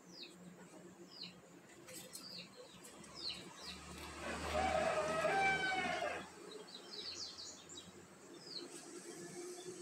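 Small birds chirping in short, quick notes in the background. About four seconds in, a louder drawn-out pitched sound with a low rumble under it rises and fades over some two seconds.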